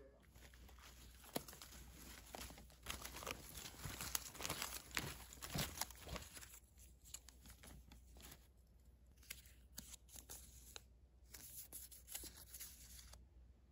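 Faint crinkling and tearing rustles with irregular small crackles and clicks, thickest in the first half and thinning out later.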